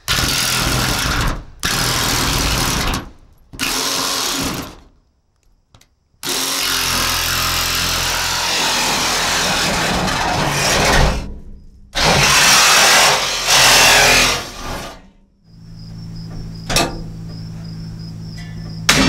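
A power saw cuts through the sheet-metal roof of a van in about six loud runs of one to five seconds each, with short pauses between them. It sounds awful. The saw stops a few seconds before the end.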